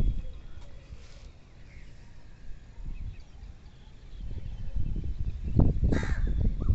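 Puppies eating dry kibble from a metal bowl: a dense patter of crunching and chewing with pellets knocking in the bowl, getting louder about five seconds in. A short high call cuts through near the end.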